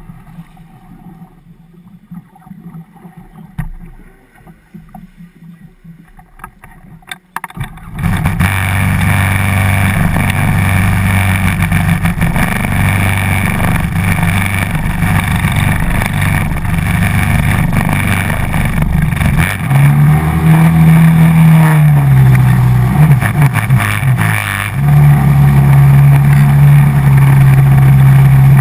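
Hydrospace 110 hp stand-up jet ski's engine, fairly quiet with a few knocks at first, then running loud under throttle from about eight seconds in. Its pitch dips and climbs back around twenty seconds in, then steps up louder and higher near the end.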